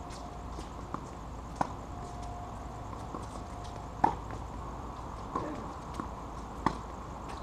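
Tennis ball knocking off rackets and bouncing on a hard court during a rally: five sharp, separate hits a second or two apart, the loudest about four seconds in, over a steady background hiss.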